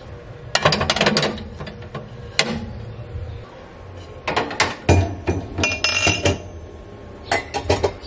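Ceramic plates and bowls clinking and clattering as they are set into a wire dish rack, in several short bursts, with a brief ringing tone about six seconds in.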